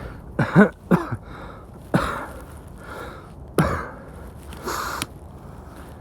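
Man out of breath after hard hand-drill work: two voiced gasps falling in pitch, then two sharp coughs and a long breathy exhale near the end.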